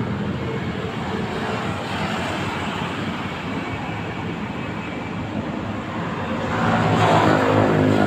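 Steady street traffic noise with the hum of vehicle engines, swelling louder near the end as a vehicle passes close by.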